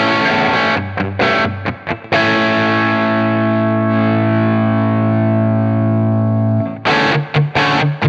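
Electric guitar played through an IK Multimedia TONEX model of a Marshall SV20H amp set for a crunch tone. Short, choppy picked chords for about two seconds, then one chord left ringing and slowly fading for over four seconds, then the choppy riff starts again near the end.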